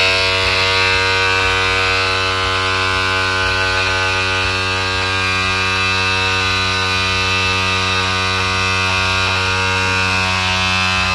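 Electric cowl-lift (cab-tilt) motor on an Isuzu truck running steadily with an even, buzzing hum as it moves the cab, now working after a grounded wire that kept blowing its fuse was fixed.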